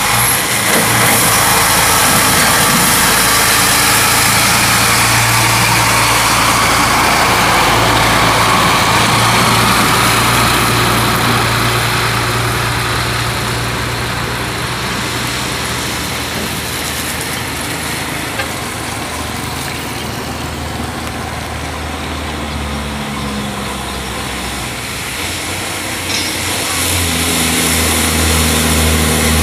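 Heavy diesel log trucks passing close by on a dirt road: an empty truck's engine and tyres go by loud at first and fade away, then a loaded Hino log truck's diesel engine grows louder as it comes closer near the end.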